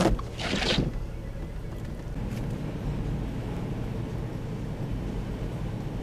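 Steady low rumble of a vehicle driving on a snow-covered road, engine and tyre noise heard from inside the cabin, with a brief louder hiss about half a second in.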